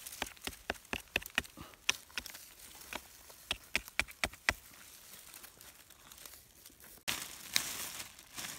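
Dry, cracked paddy mud and rice straw crackling and crunching as fingers pry up and break apart hardened clods, a quick run of sharp crackles that thins out after about four seconds. Near the end a plastic bag rustles.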